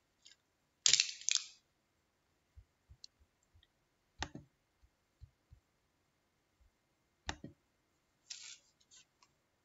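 Quiet, scattered clicks and a few short hissy rustles, with faint low thumps between them. The loudest is a click and rustle about a second in.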